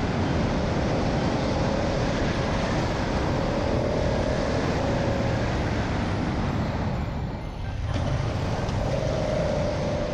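Yamaha MT-07's parallel-twin engine running steadily under way, mixed with a steady rush of air, heard from the rider's seat. The sound dips briefly about seven and a half seconds in, then picks back up.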